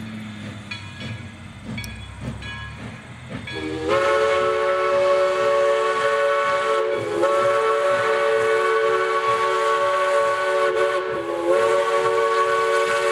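Steam whistle of East Broad Top No. 15, a 2-8-2 Mikado steam locomotive, sounding a long chord of several notes that starts about four seconds in, dips briefly twice and carries on. Before it there is only a quieter low rumble.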